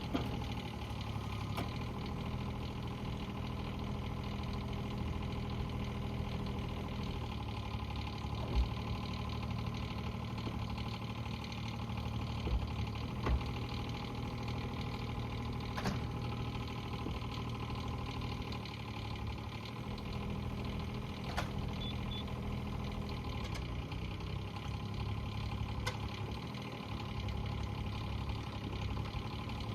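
Bobcat E20 mini excavator's diesel engine running steadily, its note shifting a few times, with a few short clunks.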